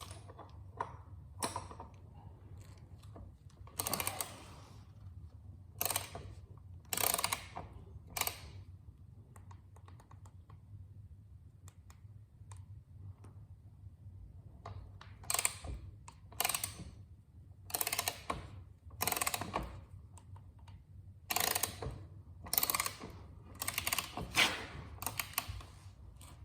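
Hand-tool handling: about fourteen short, irregular bursts of mechanical clicking and rattling, with a quiet stretch in the middle, over a steady low hum.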